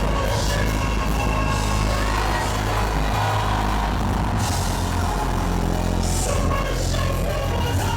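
Live worship music: a church band playing continuously while the congregation sings freely over it, each singing their own spontaneous song.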